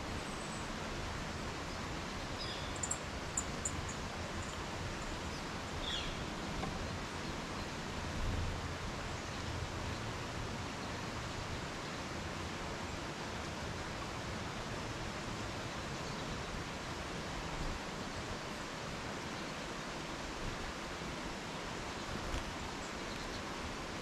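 Steady outdoor background hiss with a few brief, faint high bird chirps about three seconds in and again around six seconds in.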